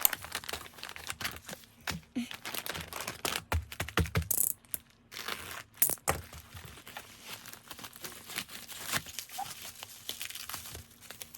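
Plastic and paper packaging being handled and unwrapped: irregular crinkling, rustling and small clicks, with two brief louder rips about four and a half and six seconds in.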